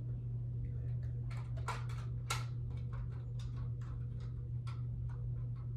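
Irregular plastic clicks and taps of a smoke alarm being handled and worked onto its mounting base, over a steady low hum.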